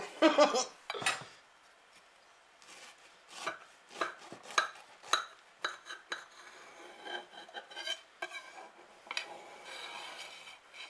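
A long knife cutting down through the crisp, crunchy crust of a baked apple cake and scraping on the plate beneath: a string of short crunches and scrapes, then a softer, longer scrape near the end as the blade slides under the slice.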